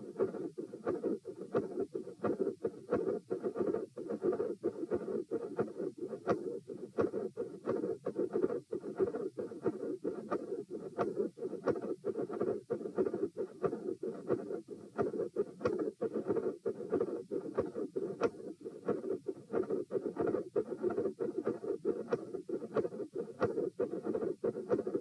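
Heart sounds: a steady murmur with repeated high-pitched clicks, which appear to fall in mid-systole.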